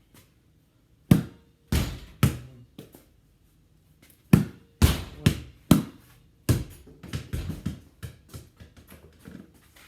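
Basketball being hit against a garage door, with about eight hard knocks spread over the first seven seconds, some followed by a short ringing. A run of smaller, quicker knocks follows and fades out near the end.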